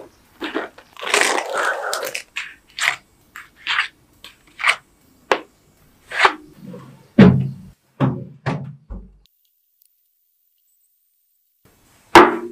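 Rustle of packaging, then about nine light clicks and duller knocks, one every half-second to a second, as foil-cupped tart shells are set down one by one on a baking tray. One sharp knock near the end as the tray is put down.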